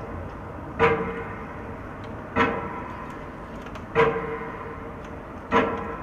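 Slow, evenly spaced metronome beats, about one every one and a half seconds, each a sharp knock with a short ringing tone that quickly dies away.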